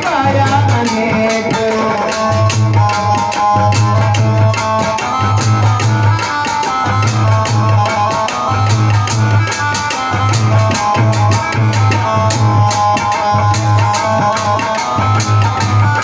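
Instrumental interlude of a live devotional bhajan: a steady melodic line over a fast, even drum beat with dense percussion strokes, the singing voice having just ended at the start.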